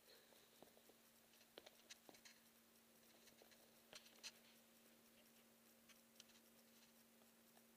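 Near silence: a steady low hum with a scatter of faint clicks and scratches from Pekingese puppies shifting about in a wire pen, a small cluster about a second and a half in and another about four seconds in.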